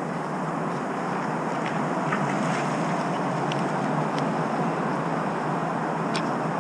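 Steady rushing wind and road noise on a motorcycle-mounted camera's microphone as the bike rolls slowly, with a few faint ticks.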